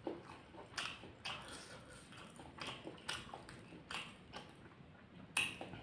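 Close-miked chewing of fried rice and raw bird's eye chilies, with about eight short, crisp crunches at irregular intervals.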